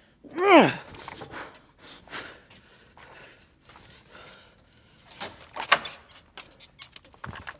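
A door creaks open with one short squeal that falls in pitch, followed by rustling, footsteps and several sharp knocks and clicks, the loudest a little over five seconds in.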